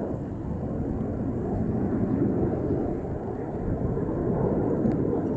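Two de Havilland Vampire jet fighters flying overhead, their Goblin turbojets making a steady, low rumbling jet noise.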